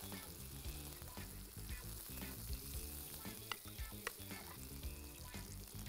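Pancake batter frying in a hot oiled skillet around apple rings, a soft steady sizzle, with a few light clicks. Faint low background music runs under it.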